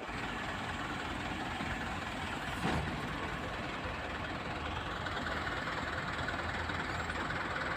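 Komatsu excavator's diesel engine running steadily, with a single short knock about two and a half seconds in.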